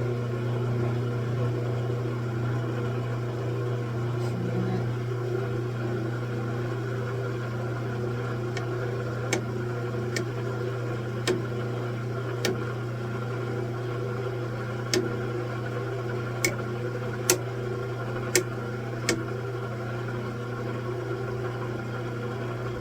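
Metal lathe running steadily with an arbor turning in the chuck, a strong low hum under a noisy whir. About ten seconds in, a series of sharp clicks sounds roughly once a second for ten seconds.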